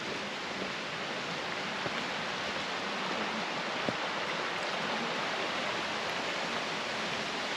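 A stream running over rocks: a steady, even rush of water.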